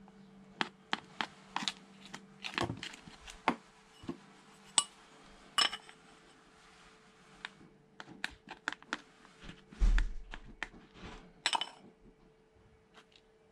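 A small brass hand tool clinking and scraping against a small cup as potting soil is scooped and tapped into plastic seedling cell trays: irregular light clicks and taps, with one heavier low thump about ten seconds in.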